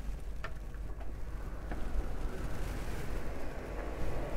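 A metal door's lever handle and latch clicking as the door is opened, two light clicks, over a steady low rumble.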